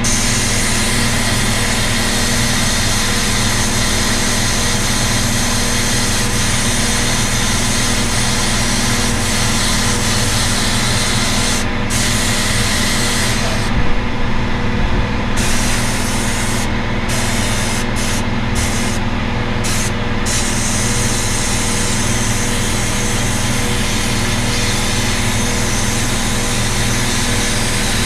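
A machine runs steadily with a constant hum and a loud hiss. The hiss drops out in several short gaps about halfway through while the hum carries on.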